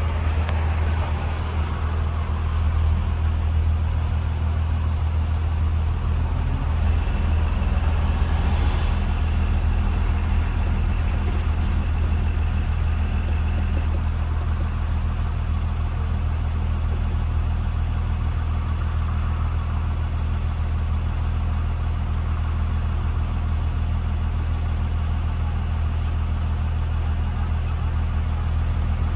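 A 2020 Blue Bird Vision school bus driving along: a steady low engine drone with road noise, heard from inside the bus.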